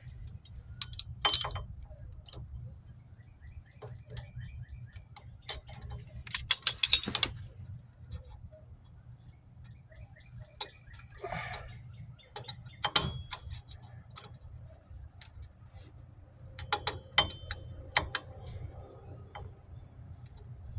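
Irregular metallic clicks, ticks and clinks of drum brake shoes, springs and hand tools being handled while the return springs are worked into place, with clusters of sharper clinks and one loud click partway through. A steady low hum runs underneath.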